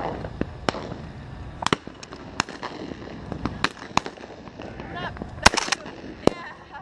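Distant shotgun shots from other hunters in the field, popping at irregular intervals about eight times, the loudest about five and a half seconds in.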